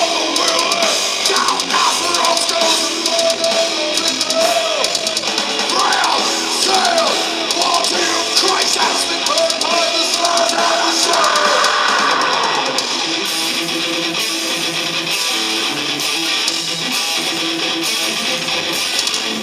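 Live metal band playing: distorted electric guitar over a drum kit.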